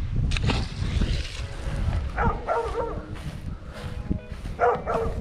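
Dogs barking: a short run of barks about two seconds in and another near the end, over wind rumble on the microphone.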